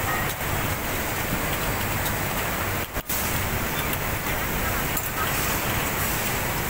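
Steady noise of a garment factory floor, the running of machinery and ventilation with industrial sewing machines, dropping out briefly about three seconds in.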